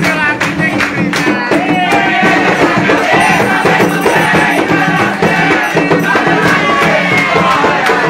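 Pagode song playing: a sung vocal line over steady percussion with tambourine and shaker.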